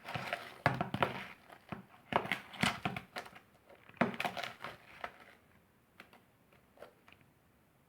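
Hands squishing and stretching fluffy borax slime made from white school glue and shaving cream: a run of irregular crackly squelches that thins out to a few faint clicks after about five seconds.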